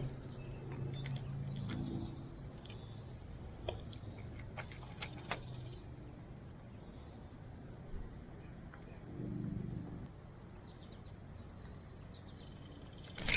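Scattered bird chirps over a low hum of distant traffic. The hum swells in the first couple of seconds and again briefly around nine seconds in. A few sharp clicks come together about four to five seconds in.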